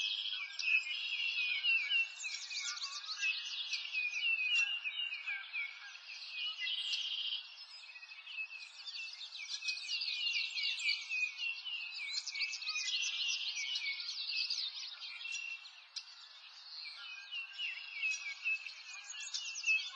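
Birds chirping: many short chirps and quick falling notes overlapping in a dense, continuous chorus.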